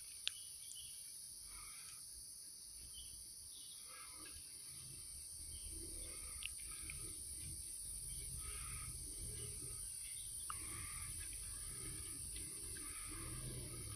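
Insects droning steadily at a high pitch, with scattered bird calls and a faint low rumble underneath that grows a little louder partway through.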